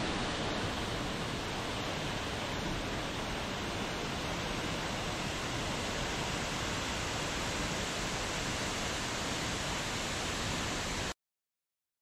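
Waterfall pouring down a rock face: a steady, even rush of falling water that cuts off suddenly into silence near the end.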